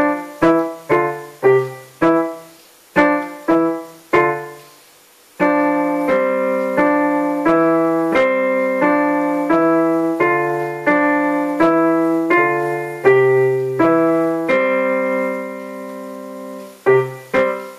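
A child plays a beginner piano piece on a digital piano with both hands. It opens with short, separate notes about two a second and a brief pause about four seconds in, then moves to smoother, connected notes that end on a held chord fading away. Short, separate notes start again near the end.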